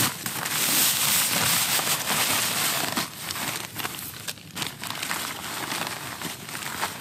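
Coarse sand pouring from a plastic bag into a plastic tub, with a steady hiss and the bag crinkling. About three seconds in it gives way to hands scraping and packing the sand in irregular strokes.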